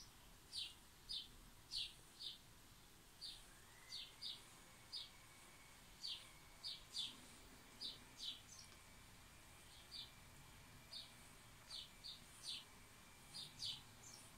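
Black Sharpie marker drawing short straight hatching lines on paper: a string of brief, high-pitched scratchy strokes, one or two a second.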